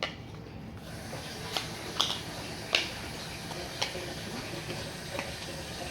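A few light, sharp clicks and taps, about five spread over a few seconds, from small plastic toy game pieces being handled and set down.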